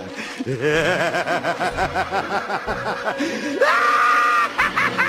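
Tabby cat meowing in short calls, then letting out one long, loud yowl about three and a half seconds in.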